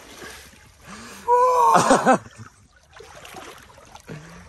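A man's short, high yell about a second in, over the steady rush of flowing creek water.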